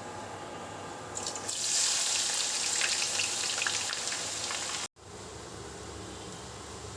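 Water running from a tap, starting about a second in and cutting off suddenly near five seconds.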